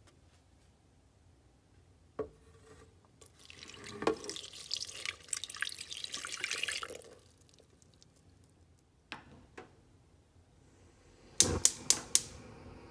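Water poured from a plastic container into a stainless steel pot of flour, splashing for about four seconds after a single knock. Near the end comes a quick run of about five sharp clicks, a gas stove's igniter being lit.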